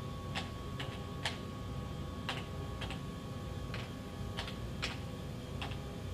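Computer keyboard keys pressed one at a time at a slow, uneven pace, about ten clicks, over a steady low hum.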